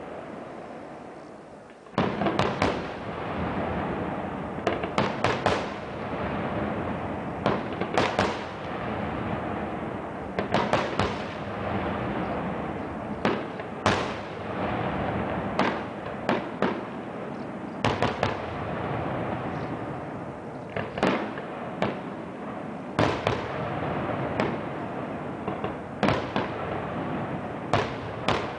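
Aerial firework shells bursting in quick succession: sharp bangs every second or two over a steady wash of noise, after a quieter first two seconds.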